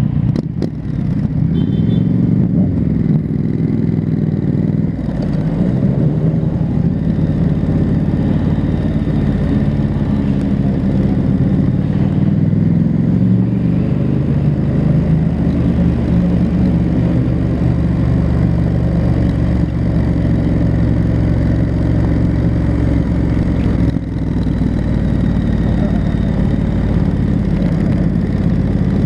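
Triumph Street Scrambler's 900 cc parallel-twin engine, on its stock exhaust, running under way. The revs rise and fall in the first few seconds, then settle into a steady engine note, with a short drop about 24 seconds in.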